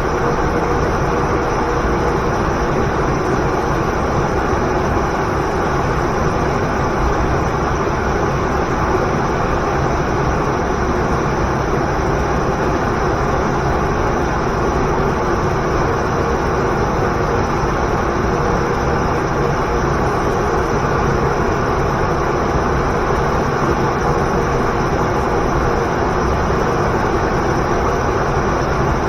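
Waterfall pouring into a river: a loud, steady, unbroken rush of water noise.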